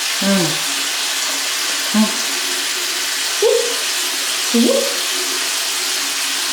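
Water running steadily from a tap to fill a bath, with a few short vocal sounds over it.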